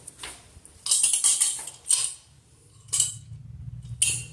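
A few short bursts of rubbing and scraping, with light metallic clinks, from cleaning buildup off the copper tub-spout pipe.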